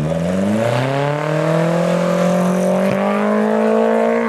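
Small off-road 4x4's engine revving up over the first second or so, then held at high revs under load as it climbs a steep sand hill.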